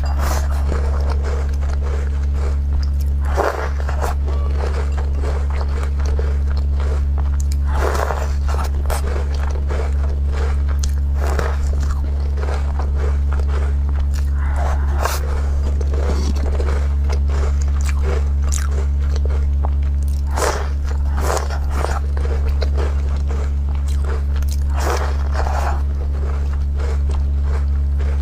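Close-miked crunching and chewing of walnut crisp cookies, with a fresh bite every few seconds, over a steady low hum.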